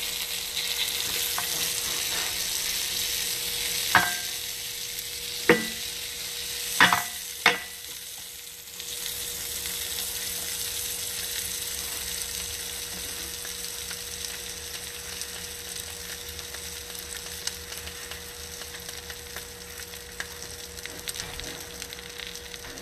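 Cereal-crusted French toast slices sizzling steadily in melted butter in a skillet. Four sharp clinks with a short ring break through between about four and seven and a half seconds in.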